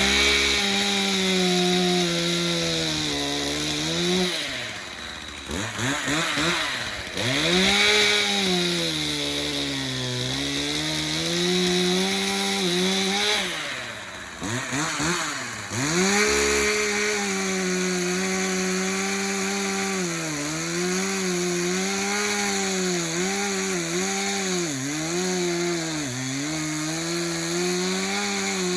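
Two-stroke chainsaw running at high throttle, its engine pitch sagging and recovering as it cuts through wood under load. Twice it falls almost to idle and revs back up, and near the end the pitch wobbles quickly up and down.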